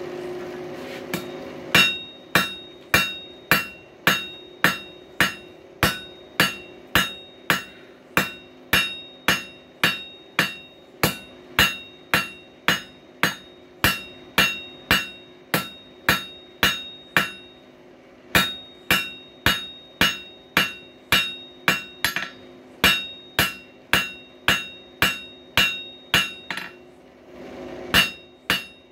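Blacksmith's hammer striking hot coil-spring steel on an anvil at a steady pace of about two blows a second, each blow followed by a bright ring from the anvil. The hammering pauses briefly twice and stops for a moment near the end before a few more blows. A steady hum runs underneath.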